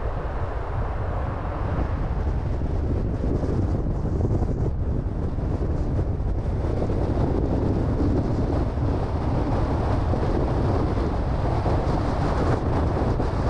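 Car driving along a road: a steady low rumble of tyres and engine, with wind noise on the microphone.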